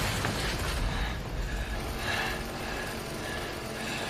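The rumble of a crash dies away in the first second, with dust and debris settling. Then comes a faint, uneven rattle of a chainsaw engine ticking over.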